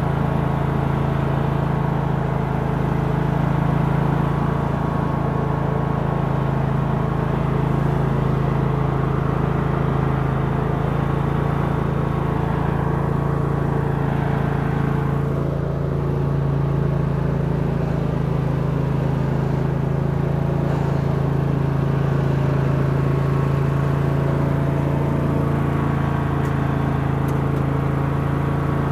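Murray riding lawn tractor's engine running at a steady speed while the tractor is driven, a constant even hum.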